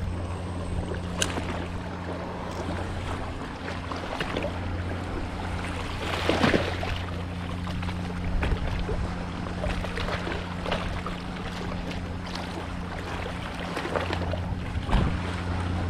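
An engine running steadily with a low hum, with scattered knocks and clatter over it and a louder knock about six and a half seconds in.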